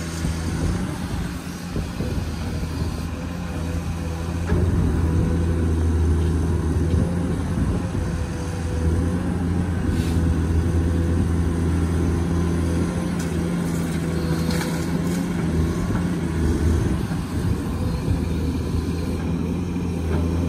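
Komatsu PC210 hydraulic excavator's six-cylinder diesel engine running steadily under working load as the machine dumps soil and digs, a low steady drone that steps up in loudness about four and a half seconds in. A few faint knocks sound over it.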